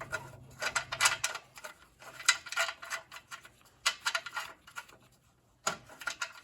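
Ratchet wrench clicking in short runs of strokes as it works the muffler bolts on a John Deere L130, with small metal clinks. The bolts are not pulling tight in their re-tapped holes.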